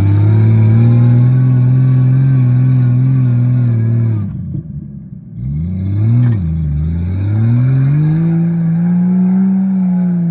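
A Jeep's engine revving hard under load as it drives through deep mud on wooden saw-blade wheels. The revs are held high for about four seconds, then drop away. A short blip follows, with a single knock about six seconds in, then the revs climb again and are held high near the end.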